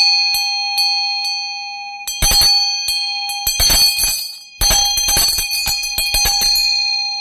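Nepalese ritual hand bell (ghanta) with a vajra handle, cast in seven-metal alloy, shaken so its clapper strikes the rim in quick clusters of strokes. A steady, resonant ring hangs on between the clusters and fades slowly after the last strokes near the end.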